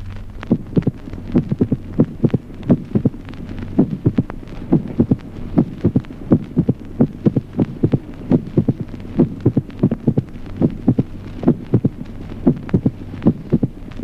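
Recorded heart sounds in slow atrial fibrillation: each beat's first and second sounds are followed, after a long interval, by a mitral opening snap, the finding typical of mitral stenosis. The beats come at uneven spacing, over a steady low hum.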